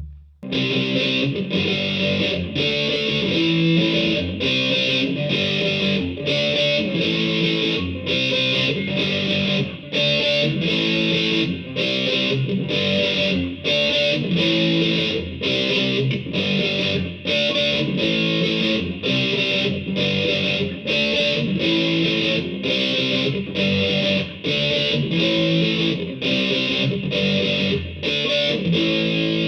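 Distorted electric guitar, a Les Paul-style guitar through a DigiTech GNX3 multi-effects processor, playing a rhythmic riff on a user preset. It starts about half a second in and is chopped by short, regular breaks, roughly three every two seconds.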